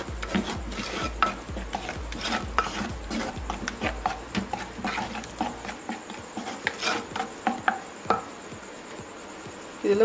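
A wooden spatula stirs thick paneer makhani gravy in a terracotta clay pot, in repeated scraping strokes against the pot. A low rhythmic knocking runs under the strokes for about the first six seconds, and after that the stirring is quieter.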